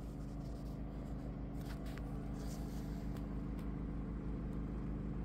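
Champion 4650 inverter generator running at a steady speed: a low, even engine hum, with a few faint clicks over it.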